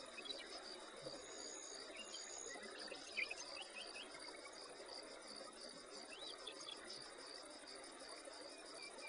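Outdoor insect chorus of crickets or katydids trilling in a steady, even pulse, with a few short high chirps scattered through it.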